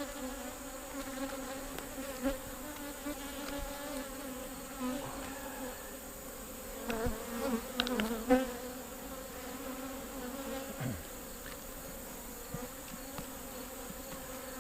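Honeybees buzzing steadily around an open hive frame, a constant hum with a few brief louder passes about halfway through.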